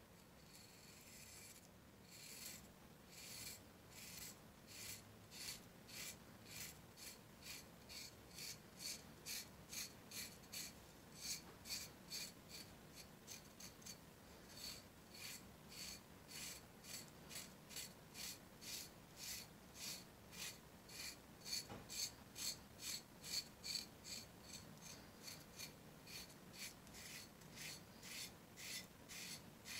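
A knife blade scraping dry psoriasis scales off a shin in repeated strokes, about two a second, starting about two seconds in.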